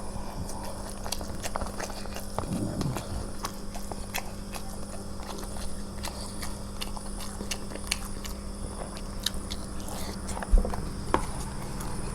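Close-up eating sounds of someone chewing fried rice, with many small clicks over a steady low hum.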